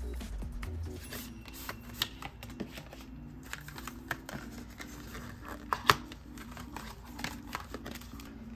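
Scattered clicks and taps of a K-pop album's cardboard and plastic packaging being handled and opened, with a sharp double click about six seconds in.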